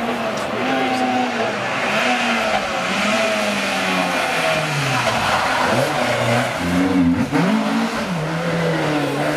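Mk1 Ford Escort rally car's engine revving hard as it approaches, its pitch rising and falling through gear changes. The revs drop low about five seconds in as it slows for the hairpin, then pick up again as it drives through the turn.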